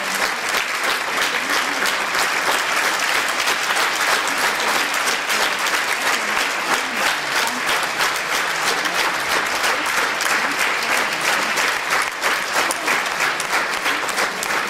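Audience applauding in a concert hall: dense, steady clapping that does not let up.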